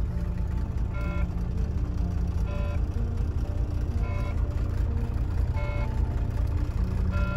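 Semi truck's diesel engine idling just after a cold start, having sat about 50 days in freezing weather, with a cab warning beep sounding about every one and a half seconds, five times. The beep is the low system air pressure alarm, sounding while the air tanks are still building pressure.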